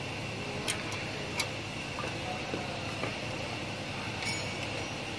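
Light metal clicks and clinks of brake parts being handled as a pad and its clip are set into the disc-brake caliper of a Mitsubishi Xpander, two sharp clicks a little under a second apart near the start and softer ticks after, over a steady hum.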